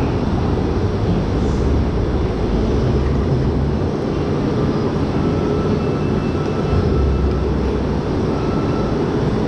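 Roller coaster train rolling slowly through its covered station: a steady mechanical rumble with a low hum underneath.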